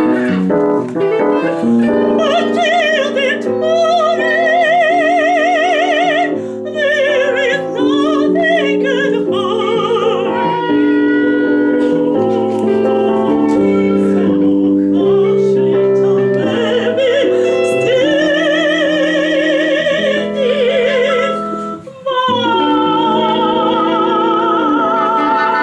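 Soprano singing operatic lines with wide vibrato over sustained keyboard chords. Near the end the music breaks off for a moment, then the voice comes back on a long held high note.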